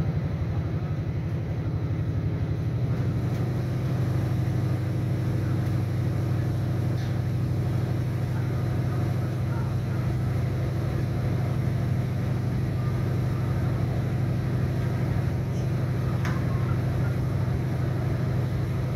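Diesel engine of a 3100 class railcar running steadily under the floor, heard from inside the passenger cabin as a low, even hum; the engine note firms up about three seconds in.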